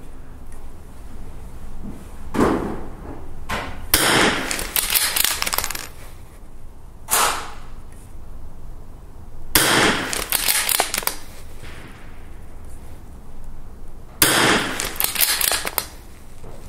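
Three .22 rifle shots about five seconds apart, each a sharp crack followed by about a second of echo, with shorter, quieter clicks and knocks between them as the bolt is worked.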